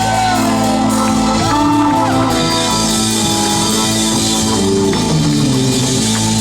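Live rock band playing loudly: drum kit with cymbals and electric guitars holding notes, with a few high notes that bend up and then fall.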